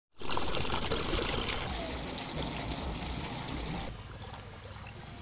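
Water swirling and gurgling as it pours down into an upright pipe, a rushing sound that softens and thins about four seconds in.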